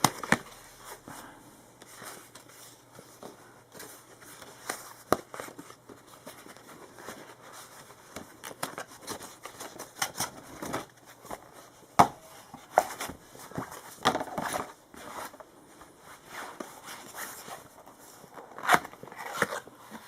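A small retail box being worked open by hand: irregular rustling, scraping and crinkling of the packaging, with scattered sharp clicks, the loudest about twelve seconds in and a cluster near the end.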